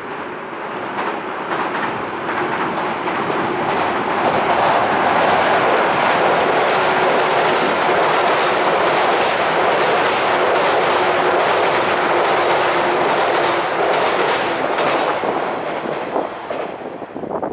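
A JR East 185 series electric train passing at speed, its wheels clattering rapidly over the rail joints. The sound builds over the first few seconds and fades near the end.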